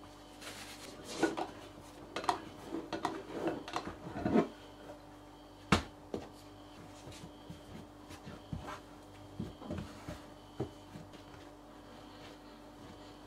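Hands knocking back risen sourdough dough: soft pressing, rubbing and dull thuds as it is pushed down in a glass bowl and worked flat on the worktop. One sharp knock comes about six seconds in, with lighter taps after it.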